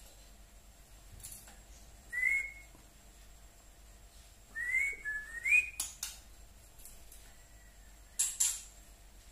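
White-rumped shama (murai batu) giving short, upward-slurred whistled calls: one about two seconds in and three in quick succession around five seconds. Sharp clicks come between them, with a pair near the end.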